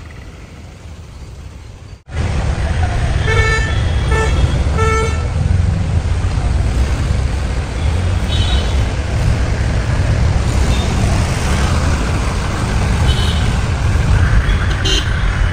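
Road traffic with a steady low rumble, which turns suddenly much louder about two seconds in. A vehicle horn toots three times in quick succession a second or so later, and fainter high beeps sound now and then after that.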